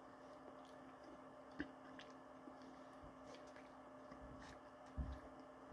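Faint sounds of a person eating ice cream from a spoon, with a couple of soft clicks and mouth sounds, over a steady low hum.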